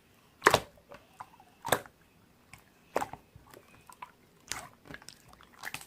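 Slime being squeezed and played with in the hands, giving five sharp, wet pops spaced about a second apart, with fainter squishy sounds between them.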